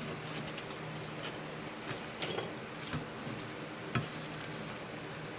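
A spoon stirring a pasta salad of noodles, ham, cheese and chicken nuggets: soft, wet mixing sounds with a few short clinks against the dish, over a steady low hum.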